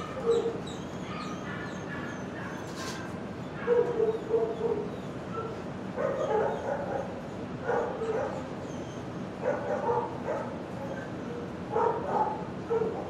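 Dogs barking and yipping in a shelter kennel, in short bursts every couple of seconds starting a few seconds in.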